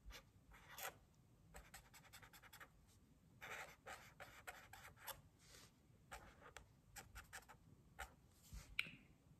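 Felt-tip marker drawing on paper: faint, irregular short scratchy strokes, with a few longer strokes mixed in.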